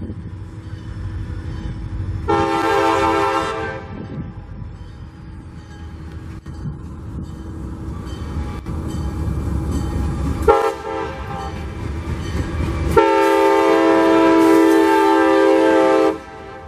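CSX diesel freight locomotive sounding its air horn as it passes: a long blast, a short one, then a longer, louder one, the pattern of the standard grade-crossing signal. Under the horn the locomotive's engine rumbles and falls away about ten seconds in, leaving the freight cars rolling by.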